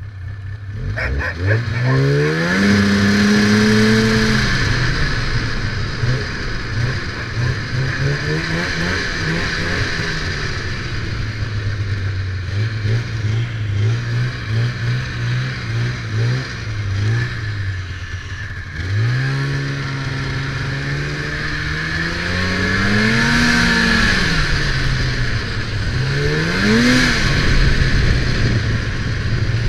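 Snowmobile engine revving up and easing off as it is ridden: its pitch climbs about a second in, settles lower for a long stretch, then rises again near the twenty-second mark and swells twice more near the end, over a steady hiss.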